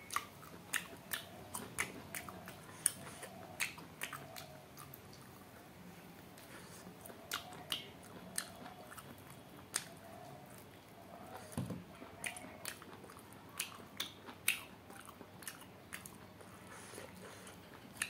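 Close-up chewing and biting of cooked duck meat eaten by hand, with irregular sharp mouth and teeth clicks scattered through the chewing.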